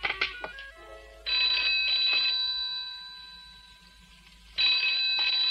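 Telephone bell ringing twice. Each ring lasts about a second and the first fades away slowly; the second starts about three seconds after the first. A few notes of music end just before the first ring.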